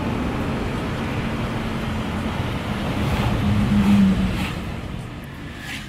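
Car engine and road noise heard from inside the cabin of a moving car: a steady rumble with a low hum that swells briefly about three and a half seconds in, then fades near the end.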